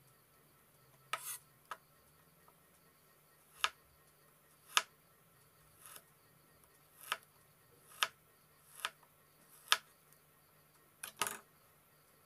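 Kitchen knife knocking on a wooden cutting board while cutting garlic cloves: about ten short, separate taps roughly a second apart, ending in a quick double knock.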